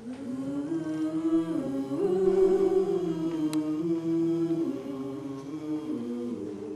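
A small stage ensemble singing together in long held notes that move slowly from chord to chord. The singing comes in suddenly at the start and fades near the end.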